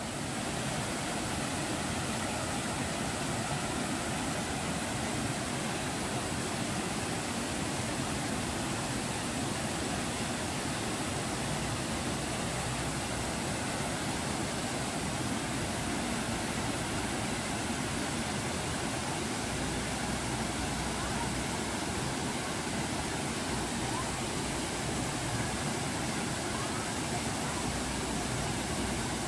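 Small waterfall, a thin, evenly spread sheet of water falling about ten metres onto rock, making a steady rushing hiss.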